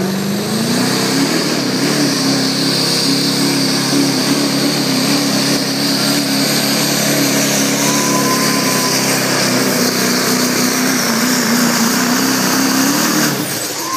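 Diesel pickup truck, a Chevrolet Silverado HD with the Duramax V8, at full throttle pulling a weight-transfer sled in the 2.6-inch turbo diesel class. The engine climbs to high revs about a second in and holds there under heavy load, with a slight waver, then drops off sharply near the end as the pull finishes.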